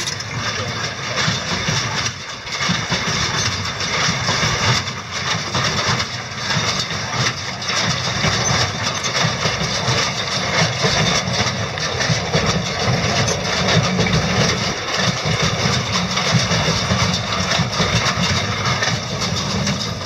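New Holland 68 small square baler running as it picks up and packs hay, a steady mechanical clatter with irregular knocks.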